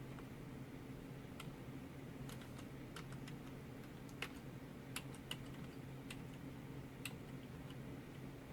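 Computer keyboard keys pressed one at a time, about a dozen separate clicks at an uneven pace, typical of stepping through BIOS menus with the arrow keys. Under them runs the steady low hum of the running desktop PC.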